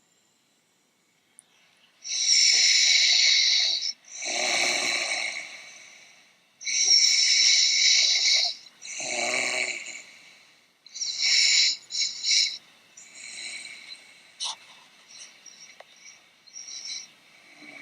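A woman snoring loudly, beginning about two seconds in. Each abrupt, hissing inhale is followed by a lower snore that fades out, for about three full breaths. After that the breathing turns quieter and choppier.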